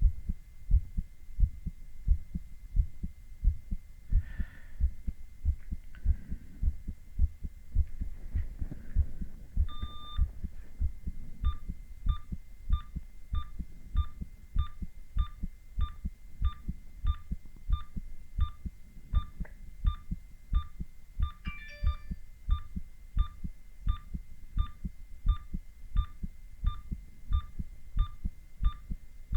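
A man's heartbeat heard through a stethoscope: regular low lub-dub thumps at about 80 beats a minute, over a faint steady hum. From about a third of the way in, an ECG monitor beeps once with each beat.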